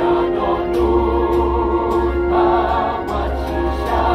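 Mixed choir of women's and men's voices singing a hymn through stage microphones, holding long notes with vibrato.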